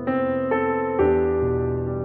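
Background music: a piano-like keyboard playing a slow run of held notes, changing about every half second.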